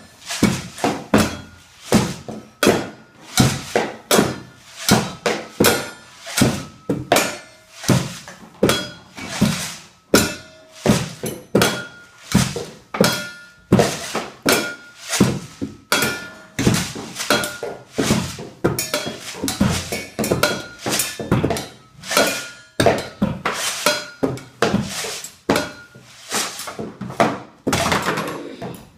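Children drumming on homemade instruments, a plastic bucket, tin cans and wooden boxes struck with sticks, in a steady rhythm of two to three hits a second, with brief ringing tones between the strokes.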